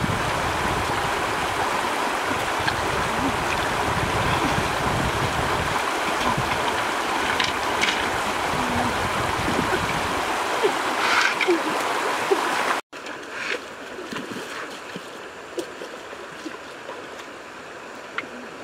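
Shallow stream rushing over rocks, with a few short splashes of hands working in the water. About thirteen seconds in it cuts abruptly to a quieter, softer flow of water.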